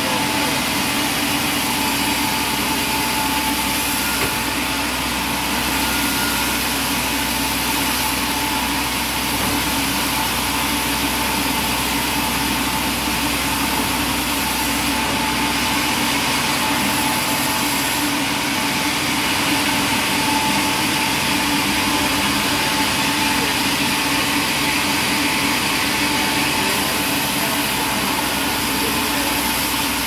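Sawmill band saw headrig running steadily: a continuous even machine drone with a steady hum and a hiss reaching high.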